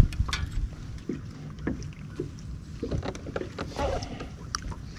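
Scattered light knocks and clicks of handling gear in a fishing boat, over a steady low rumble of wind and water against the hull.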